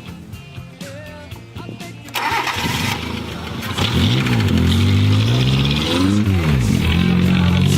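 Toyota Corolla's 1.5-litre 3A four-cylinder engine starting about two seconds in, then revved up and down a few times before holding a steady high rev. The engine has been run out of oil and is knocking.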